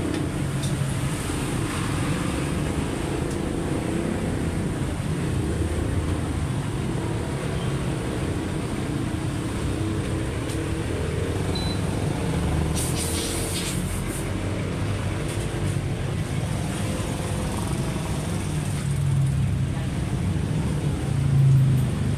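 A steady motor-vehicle engine rumble, with a short run of clicks about 13 seconds in.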